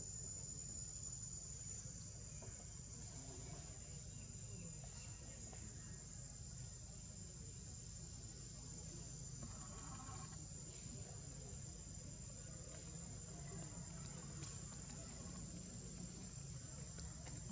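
Insects droning steadily at a high, unbroken pitch, with a low steady rumble underneath.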